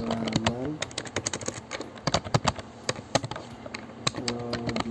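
Computer keyboard typing: quick runs of key clicks coming in clusters. A person's voice is held briefly at the start and again near the end.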